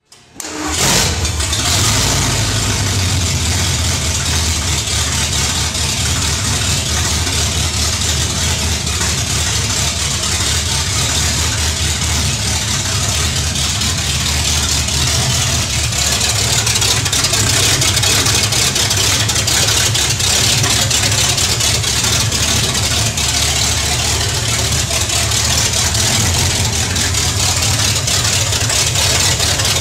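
Stock Ford 460 big-block V8 idling steadily through Hedman headers and a dual 2½-inch exhaust with Thrush Welded Series mufflers. It starts about half a second in and holds an even, deep idle with no revving.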